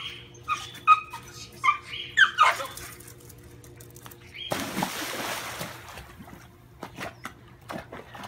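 Westie puppy letting out short, high-pitched excited cries, then a splash about four and a half seconds in as it dives into a swimming pool, followed by small splashes as it paddles.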